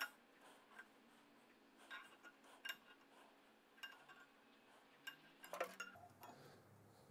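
Faint, scattered metallic clicks and taps as an outside micrometer is set against a Rover V8 crankshaft journal and adjusted to measure its diameter, with a quick run of clicks about five and a half seconds in.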